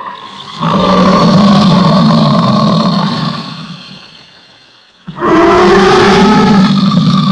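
Alligator bellowing: two loud, deep, drawn-out roars. The first starts just under a second in and fades away after about three seconds; the second starts abruptly about five seconds in.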